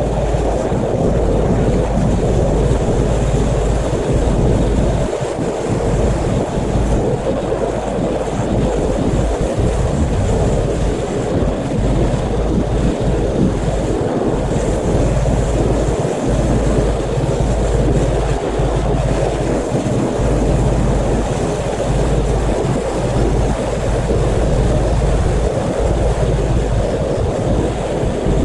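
Pressure washer running and spraying water, a loud steady rush with a low rumble and no breaks.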